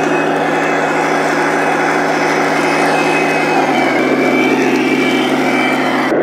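Radio-controlled model IS-2 tank driving over dirt, giving off a steady engine-like drone that shifts pitch slightly a little over halfway through.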